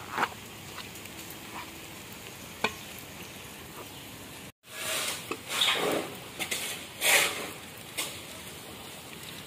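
Cooking at a large metal pot over an open wood fire: a steady hiss with a few light clicks, then, after a sudden brief gap about halfway, louder irregular scraping and crackling bursts as the fire under the pot is stoked with a stick.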